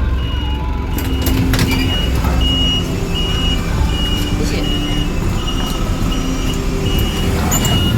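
Small bus's electronic warning beeper repeating evenly, about one and a half short high beeps a second, over the low rumble of the idling engine, with a few sharp clacks about a second in.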